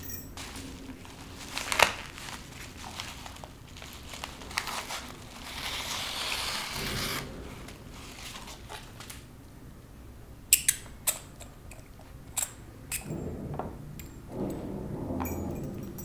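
Close handling sounds as a small hook knife cuts the twine on a padded paper envelope: a sharp snap about two seconds in, paper rustling in the middle, then several sharp clicks and taps and a little fumbling near the end.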